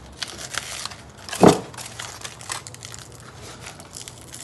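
Aluminium foil and stiff, dried papier-mâché crinkling and crackling as the shell is worked loose from its foil-covered bowl mold, with one louder crunch about a second and a half in.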